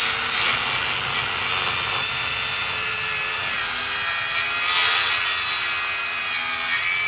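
Electric circular saw blade of a multi-purpose saw cutting through laminated engineered wood board, a steady saw-cutting sound with a faint whine, which cuts off suddenly near the end.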